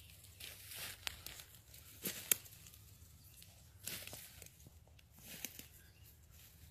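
Footsteps crunching and rustling through dry leaf litter, an uneven run of crackles with a few sharper snaps, the loudest about two seconds in.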